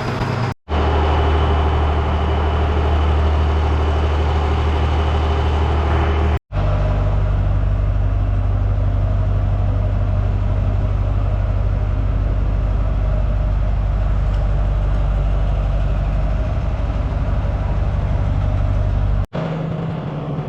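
An engine running steadily at idle, a low even drone, broken by three abrupt cuts with its pitch shifting a little after each.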